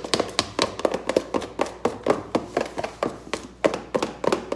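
Homemade slime being stirred by hand: a quick, even run of taps and clicks, about four a second, as the mixing tool strikes through the mixture and against its container.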